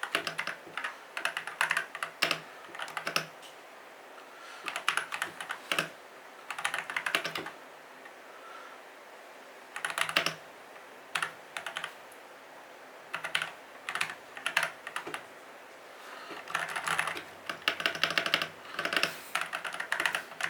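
Typing on an Attack Shark K75 mechanical keyboard: fast runs of sharp key clicks and clacks, broken every few seconds by short pauses.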